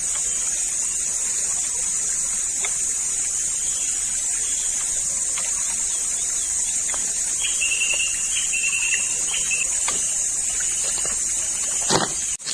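Steady high-pitched drone of insects, with a short run of repeated high chirping notes about seven and a half seconds in and a sharp knock near the end.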